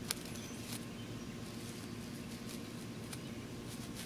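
Faint rustling and a few soft ticks in grass as a small cat paws at a moth, over a steady low hum.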